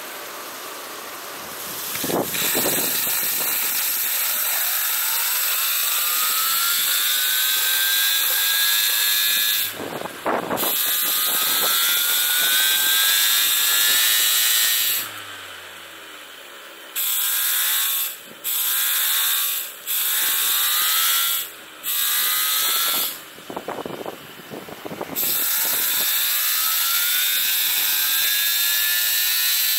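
Homemade model steam turbine driven by a steam jet: a loud rush of steam with a whine that climbs in pitch as the wheel spins up. About halfway through the sound cuts out and comes back several times in short spurts, then runs steadily again with the whine rising.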